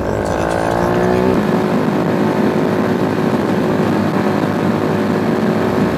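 Motorcycle engine with a newly fitted exhaust, which he calls mild and sweet rather than ear-splitting. The revs rise for about the first second and a half, then hold steady at cruising speed over wind rush.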